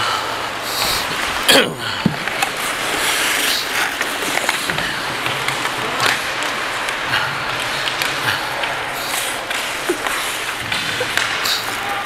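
Ice hockey skates gliding and scraping on rink ice, heard close up from a skater's head-mounted camera, with scattered sharp knocks and one loud scrape with a falling sweep about a second and a half in.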